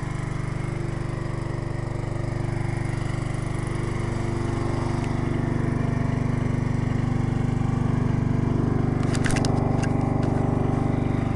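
Garden tractor engine running steadily, getting a little louder partway through, with a brief cluster of sharp clicks about nine seconds in.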